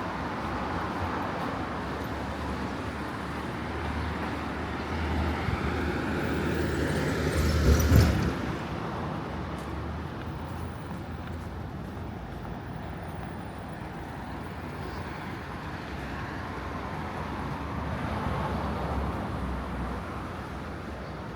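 Street traffic: a vehicle passes close by, swelling to its loudest about eight seconds in and then fading, with a second, fainter vehicle passing near the end.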